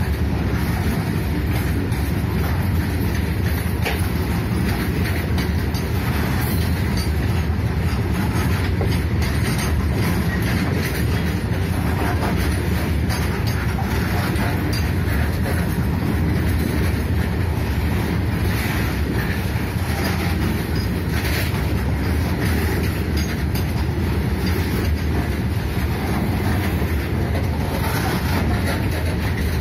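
Loaded coal goods wagons rolling past on the track: a steady heavy rumble of steel wheels on rails, with the clatter of wheels over rail joints.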